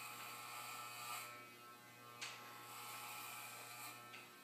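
Electric hair clippers buzzing steadily with a low, even hum as a head is shaved; a short click about two seconds in.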